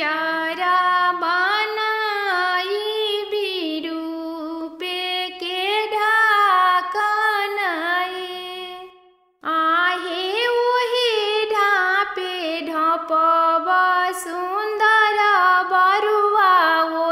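A woman singing a traditional Bhojpuri janeu geet, a folk song for the sacred-thread ceremony, unaccompanied, in long held, ornamented lines. Her voice fades out about halfway through and comes back after a brief pause.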